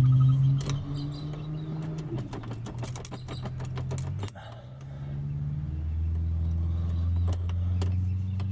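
Metal lock-picking tools (dipsticks) clicking and rattling as they are worked and wiggled into a worn flat-key car lock barrel, with irregular sharp clicks throughout. A steady low hum runs underneath, shifting in pitch a few times.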